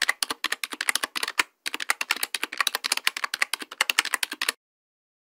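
Typing sound effect: a rapid run of sharp keystroke clicks, with a brief pause about one and a half seconds in. The clicks stop abruptly about four and a half seconds in.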